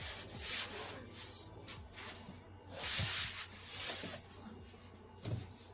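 Packaging rustling and scraping in several bursts as a boxed battery is handled and lifted out, the longest burst in the middle, over a steady low hum.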